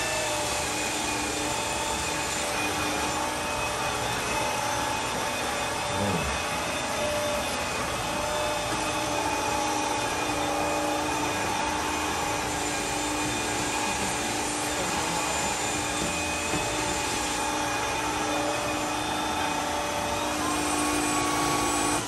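Neakasa cordless wet-dry vacuum floor washer running in wet mode over a tile floor, its suction motor and roller giving a steady rushing hiss with a high whine.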